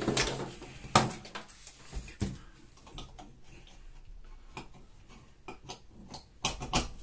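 Handling noises: a scatter of light clicks and knocks with soft rustling as someone reaches in among pipes and plastic tubing. The loudest knock comes about a second in, with a quick cluster of clicks near the end.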